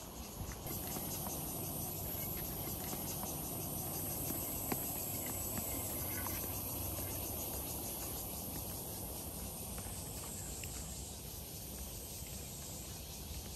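Steady high-pitched chorus of insects, a continuous shrill drone with a fine pulsing texture, over low background noise.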